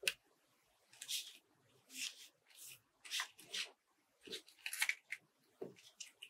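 Steel scissors snipping paper, with paper rustling, in about a dozen short crisp strokes at irregular intervals. The first is a sharp click.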